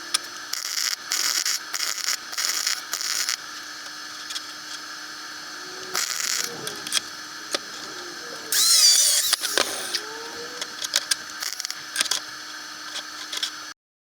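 Metal parts and tools being handled: irregular short bursts of scraping and rattling with sharp clicks and taps, over a steady hum. The loudest scrape comes about 9 seconds in, and the sound cuts off abruptly just before the end.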